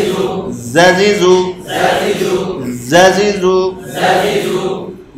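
A man chanting Quranic recitation in the drawn-out melodic tajweed style, repeating a short phrase about every two seconds. Each phrase rises in pitch at its start and is then held. It is a teacher's demonstration of how the letters should be pronounced.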